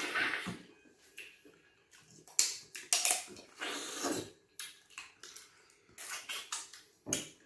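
Close-up eating noises: slurps, lip smacks and chewing, in short irregular bursts with a few sharp clicks.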